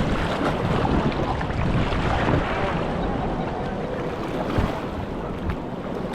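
Ganges river water rushing around an inflatable raft, with wind noise on the microphone.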